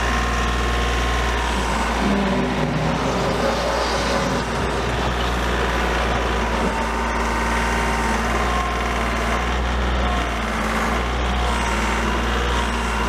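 Kioti 35-horsepower compact tractor's diesel engine running steadily while its front-end loader bucket is raised and lowered.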